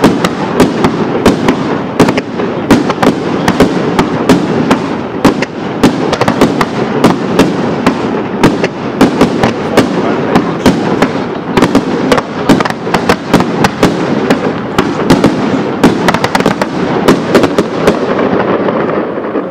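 Professional fireworks barrage: single-shot comets fired in quick fans and bursting overhead, a rapid string of sharp bangs, several a second, over a steady rumble.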